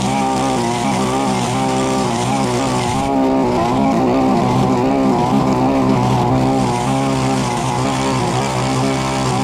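Petrol brush cutter running at high revs while cutting tall grass, its engine pitch wavering slightly as the cutting head takes the load.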